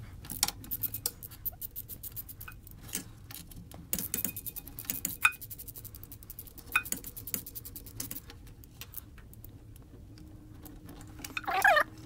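Ratchet wrench clicking in quick runs with short pauses, with a few metal clinks, as the timing chain cover bolts are loosened. A brief voice-like sound comes near the end.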